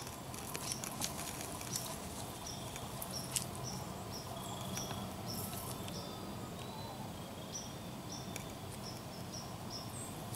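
Outdoor woodland ambience: short, high chirps repeating about twice a second, typical of a cricket, over a faint hiss, with a few light crackles in the first few seconds.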